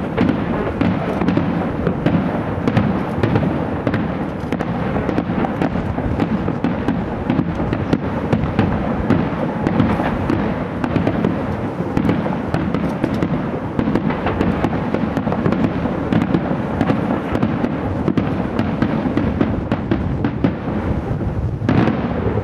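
A fireworks display going off without pause: many sharp bangs and crackles in quick succession over a dense low rumble.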